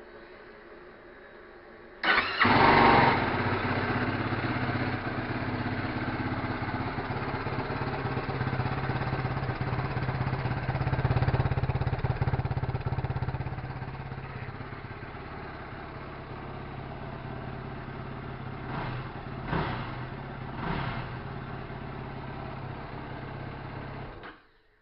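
2016 Yamaha YFZ450R's single-cylinder four-stroke engine starting about two seconds in, then idling steadily through the stock exhaust with its baffle still in. Three brief revs come near the end, then the engine is shut off and stops suddenly.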